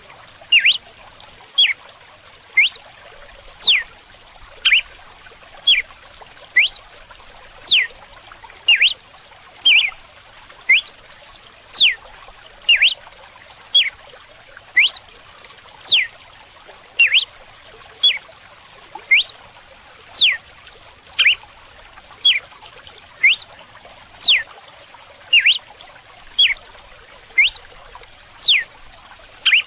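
Red-cowled cardinal (galo-de-campina) singing its 'açoite' (whip) song: short, sharp whistled notes about one a second, some sweeping down and some sweeping up, over a steady trickle of running water.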